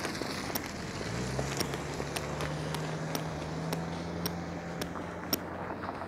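A car engine running with a steady low hum, rising slightly as it starts about a second in. Over it come footsteps on hard pavement, about two a second.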